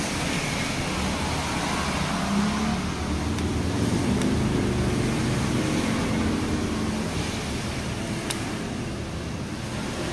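Motor vehicle engine noise from passing traffic, steady throughout, with a couple of small sharp clicks.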